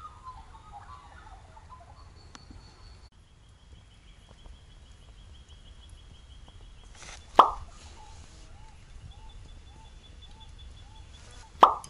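Two short, loud pop-style sound effects, each a quick plop that drops in pitch, about four seconds apart. Faint chirping sits in the background.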